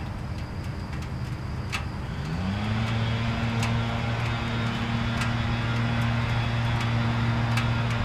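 Kawasaki Ninja 650R parallel-twin motorcycle engine running steadily. About two seconds in its speed rises and then holds at a higher, even pitch. A few faint sharp clicks sound over it.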